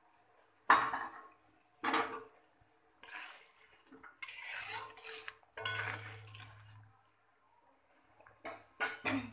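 Metal spatula knocking against and scraping around a metal kadai while potato pieces are stirred into a thin curry. Two sharp clanks in the first two seconds, the first the loudest, then several seconds of scraping strokes and a few quick clicks near the end.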